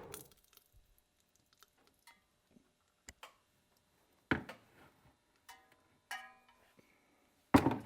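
Blacksmith's heating torch hiss cutting off, followed by scattered light clicks and a few short ringing metal clinks as tools and the blade are handled. One louder clank comes near the end.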